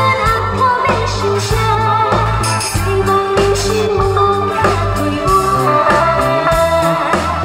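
A woman singing through an amplified handheld microphone over loud backing music with a steady, stepping bass line.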